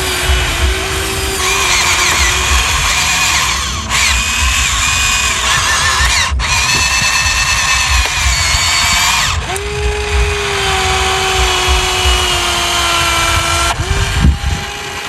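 Small electric motors and gearboxes of radio-controlled toy construction vehicles whining. Several steady tones overlap and change pitch as the motors start and stop, with changes at about 4, 6, 9 and 14 seconds in.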